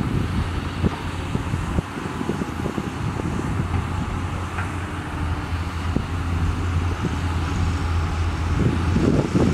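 Diesel engine of a crawler excavator running steadily while it digs, with scattered knocks and clatter from the bucket and soil. The knocking grows denser near the end.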